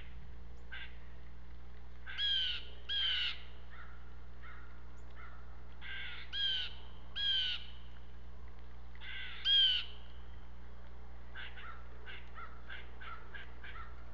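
Blue jays giving harsh, rasping jay calls, mostly in pairs, the loudest about two, six and nine and a half seconds in, with softer, shorter calls near the start and in the last few seconds.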